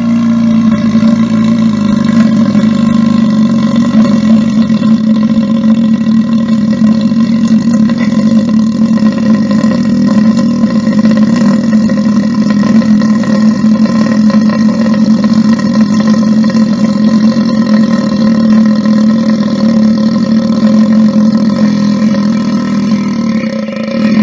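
One long, loud human belch held without a break at a steady low pitch.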